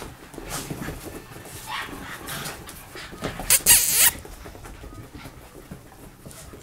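Shiba Inus and a Scottish terrier playing: scuffling and short dog play noises, with a brief loud noisy burst about three and a half seconds in.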